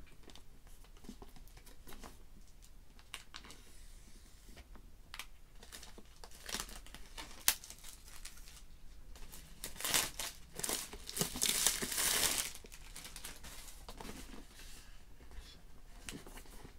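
Unwrapping a sealed iPad Pro retail box: plastic wrapping tearing and crinkling, with handling of the cardboard box. There are scattered small taps, a sharp click about seven and a half seconds in, and the loudest tearing and crinkling between about ten and twelve seconds in.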